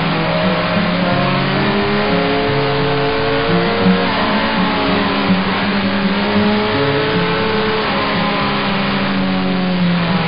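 Sport motorcycle's engine running at road speed, its pitch climbing slowly twice as the bike accelerates out of the bends, with wind rushing past the bike-mounted camera.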